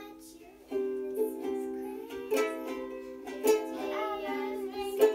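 Ukulele strummed in a C chord by a beginner practising it, a few strums starting about a second in, each left ringing.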